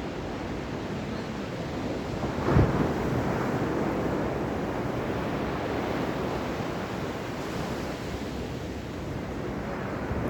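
Ocean surf washing steadily, with one brief low thump about two and a half seconds in.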